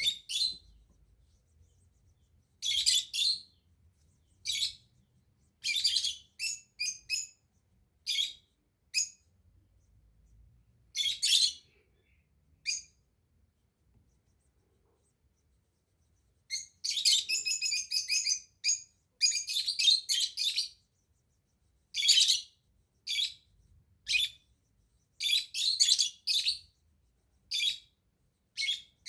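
A small bird chirping in short, high-pitched calls in irregular groups, falling silent for a few seconds near the middle, then a quick run of chirps followed by more scattered calls.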